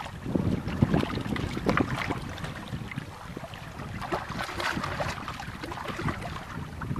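Wind buffeting the microphone while small waves slap against the side of the boat in irregular splashes, with a longer hissing splash about four to five seconds in.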